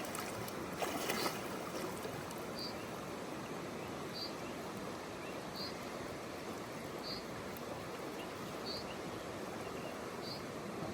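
River water running steadily with quite a bit of flow. A brief splash about a second in, and a faint short high chirp repeating roughly every second and a half.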